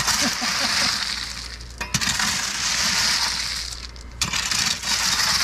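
A rake dragged through loose rocks in three long scraping strokes about two seconds apart, each beginning with a sharp click, the stones grating and clinking against each other.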